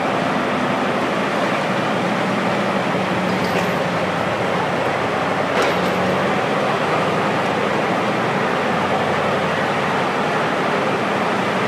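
Liebherr T 284 mining dump truck's large diesel engine running with a steady drone as the truck rolls slowly forward, with one short click about halfway through.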